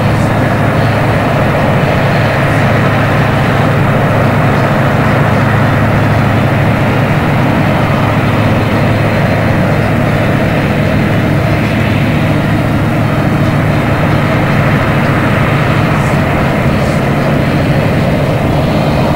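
Claas 218 combine harvester working through a standing cereal crop, its engine and threshing machinery making a loud, steady, constant low drone.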